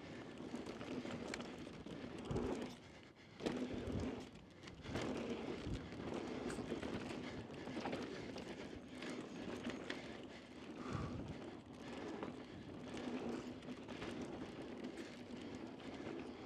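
A mountain bike rolling fast down a dusty dirt trail: steady tyre noise on loose dirt, with the bike rattling and knocking over bumps several times.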